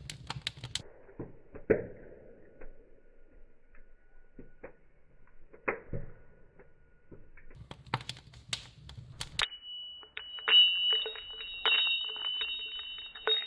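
Scattered sharp clicks and knocks. About two-thirds of the way in, a steady high-pitched ringing tone begins, with rapid ticking over it.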